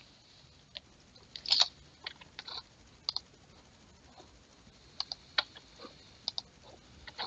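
Light, irregular clicks and taps of a computer mouse and keyboard over a faint steady hiss, the loudest cluster about one and a half seconds in.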